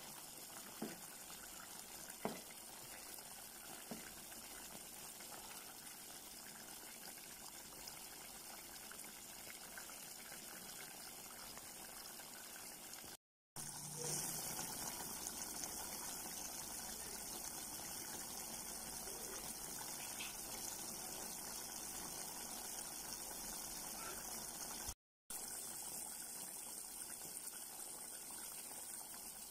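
Coconut milk simmering in a pan with string beans and chillies, a steady bubbling hiss with a few small clicks in the first few seconds. The sound cuts out briefly twice, and the hiss is brighter after the first cut.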